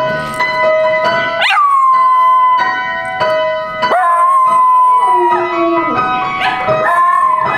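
Small dog howling along to music: three long howls, each starting with a sharp upward whoop, then held and sliding slowly down, over steady held notes of the music.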